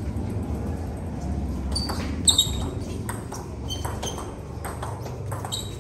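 Table tennis rally: a celluloid/plastic ball is clicking off the paddles and the table in a string of sharp, ringing taps at uneven spacing. The loudest tap comes about two seconds in. A low steady hum runs underneath.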